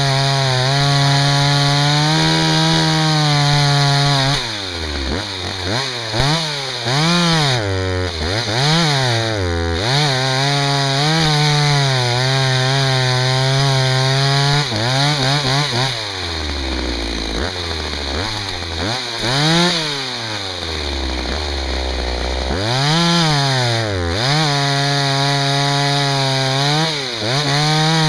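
Husqvarna 61 two-stroke chainsaw cutting firewood. It runs steadily at full throttle, then revs up and down again and again, dropping low toward idle for several seconds in the middle. Near the end it settles back to a steady high rev.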